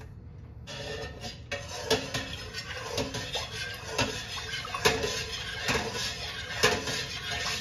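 Metal ladle stirring soy milk as it heats in a stainless steel stockpot, swishing through the liquid and scraping and knocking against the pot about once a second; it starts a little under a second in.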